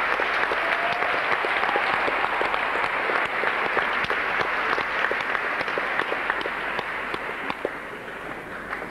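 Audience applauding in a theatre, the clapping slowly dying away.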